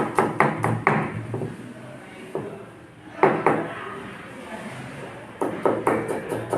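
Kitchen knife chopping ginger on a chopping board, quick regular strokes about three to four a second. The chopping pauses for a couple of seconds, with only two strikes in the middle, then starts again near the end.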